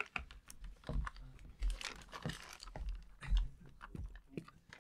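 Thin vacuum-formed plastic chocolate mold crackling and clicking as it is held and squeezed while chocolate is piped into it: scattered, irregular crinkles and clicks, with a few dull knocks.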